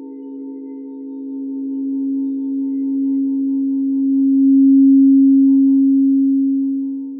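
Singing bowls ringing with a sustained low tone and fainter higher overtones, the sound swelling louder to about five seconds in, then easing off.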